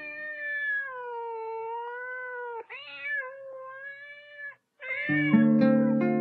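Cat meowing: three long, drawn-out meows with slowly wavering pitch. Music chords come in under the last one, about five seconds in.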